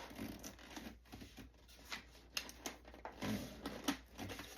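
Irregular rustling and light clicks of hands tucking wires into a foam model-plane fuselage, with a few sharper ticks in the second half.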